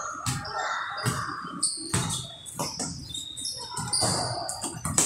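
A basketball bouncing on a hard gym court, a series of irregular thuds echoing in a large hall, mixed with short high squeaks of sneakers on the floor.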